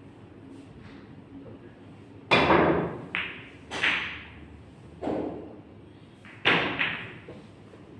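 A pool shot on a Brunswick table: about six sharp knocks of pool balls over some four seconds, the first the loudest, as the struck balls collide and drop into the pockets.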